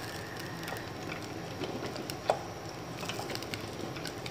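Wooden spoon stirring and scraping a thick pot of ful medames (mashed fava beans), with scattered small clicks and one sharper knock about two seconds in.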